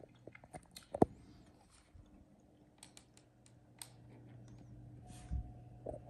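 Scattered sharp clicks and taps, the loudest about a second in, over a faint steady low hum, with a soft low thump near the end.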